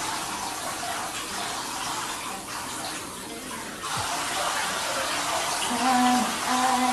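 Water running into a bathtub, a steady rush that thins for about a second midway and then comes back.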